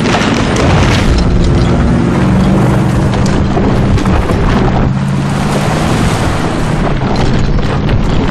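Ford F-150's EcoBoost V6 running hard under load as it drags a chained log over the dirt, a loud steady rumble with scraping noise, with music underneath.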